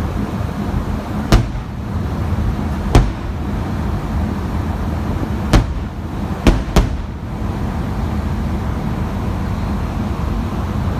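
Aerial firework shells bursting at close range, five sharp bangs about a second or two apart, the last two close together, over a steady low rumble.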